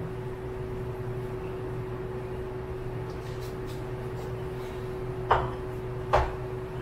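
Steady low background hum of the kitchen, then two sharp knocks near the end, a little under a second apart, as a bowl and things are set down on the kitchen counter.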